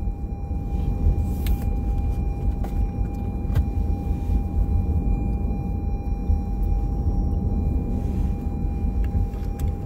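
Car cabin road and engine rumble while driving, with a thin steady high tone over it and a few light clicks in the first few seconds.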